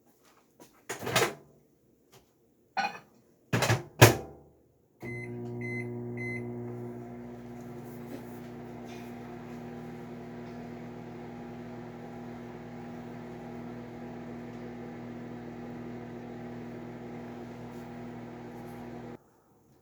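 Several knocks and clunks, the loudest about four seconds in, then three short beeps from the keypad of a microwave oven as it starts. The microwave runs with a steady hum for about fourteen seconds and cuts off suddenly.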